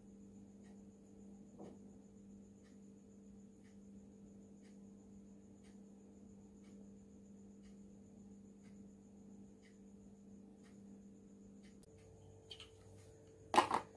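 Quiet room tone: a steady low electrical hum with faint ticks about once a second. The hum changes at a cut about twelve seconds in, and a brief loud sound comes near the end.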